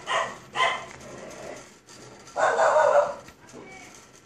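Infant vocalizing: two short sounds near the start, then a longer one about halfway through.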